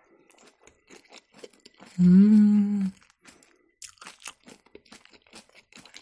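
Close-up chewing of a beetroot salad, with many small crisp crunches throughout. About two seconds in, a woman hums a steady closed-mouth 'mmm' for nearly a second; it is the loudest sound.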